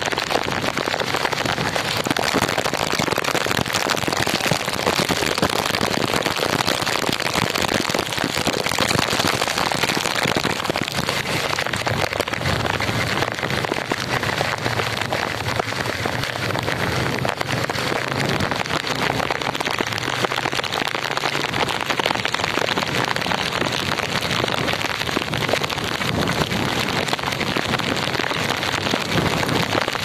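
Heavy tropical downpour: dense, steady rain pouring onto a wet road.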